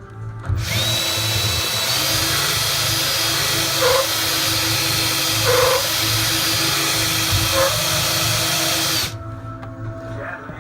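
Power drill running steadily under load, drilling and countersinking screw holes; it starts about half a second in and stops about a second and a half before the end, with two brief squeaks over it in the middle.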